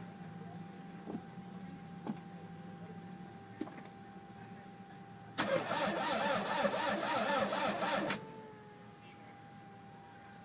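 Toyota MR2 starter cranking the engine for about three seconds, in an even pulsing rhythm, then stopping abruptly without the engine catching: a no-start. A faint steady whine and a few light clicks come before and after the cranking.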